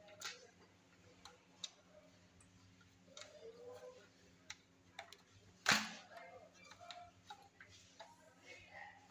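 Scattered light clicks and taps of plastic parts being handled as a motorcycle's headlight and meter housing is fitted, with one sharp, louder click a little before six seconds in.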